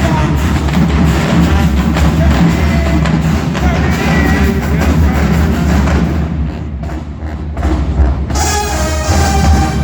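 HBCU marching band playing, with the drumline and bass drums driving hard; the drums ease off a little near the middle, then the brass comes in on a held chord about eight seconds in.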